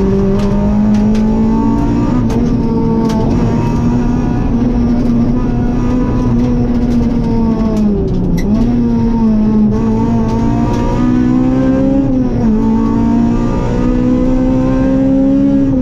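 Rally car engine heard from inside the cockpit, running hard at high revs with a steady, slowly climbing note. The pitch dips briefly twice, about eight and twelve seconds in, and a few sharp ticks sound over it.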